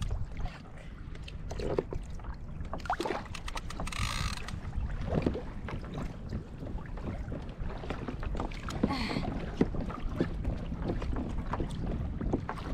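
Water lapping against a kayak hull with wind rumbling on the microphone, with scattered small knocks and a short hiss about four seconds in.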